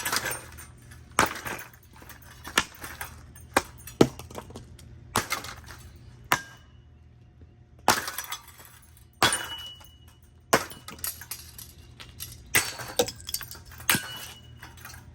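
A Heritage M52UL five-blade ceiling fan being smashed: about a dozen hard, irregular strikes roughly a second apart, with cracking, breaking and clinking of brittle parts, some hits leaving a brief metallic ring.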